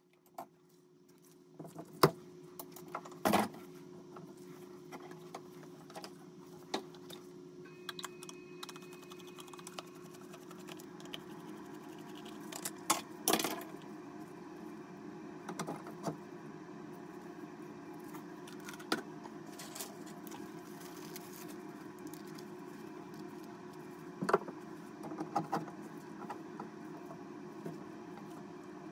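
Scattered metallic clinks and knocks as gloved hands and tools handle a brass shower valve body inside the wall cavity, with a few louder knocks. A steady low hum runs underneath.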